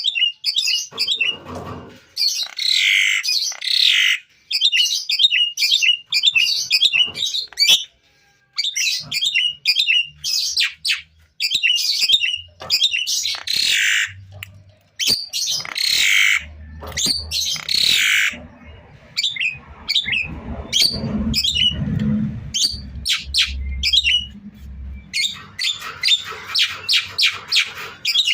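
Javan myna singing vigorously: a rapid, varied run of chirps, whistles and harsh squawks, some notes sliding down in pitch, with short pauses between phrases. A low rumble sits under the song for several seconds midway.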